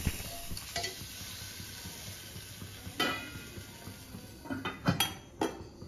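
A metal spoon clinking and scraping against a kadai as the cooked taro is stirred and taken out, a few sharp knocks, the loudest about three seconds in and near the end, over a faint steady sizzle.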